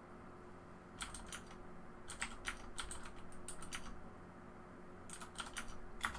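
Typing on a computer keyboard: quick runs of keystroke clicks in a few short bursts, with brief pauses between them.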